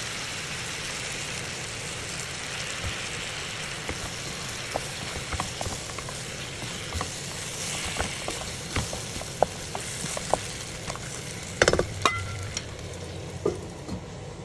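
Chicken wings sizzling in a stainless steel pot: a steady frying hiss with scattered sharp pops of spattering fat. Near the end, a louder clatter of metal against the pot with a brief ring, then a knock.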